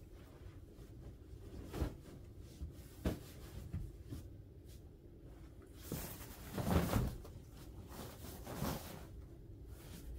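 Cotton bed sheet rustling as it is smoothed and tucked under a mattress, with a few dull knocks against the bed. The loudest rustle and thump comes about seven seconds in.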